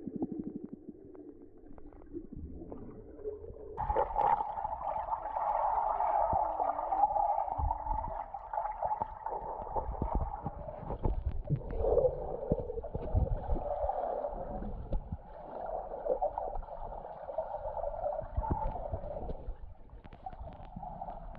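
Muffled underwater sound picked up by a submerged action camera: water gurgling and swishing with scattered knocks, getting louder about four seconds in.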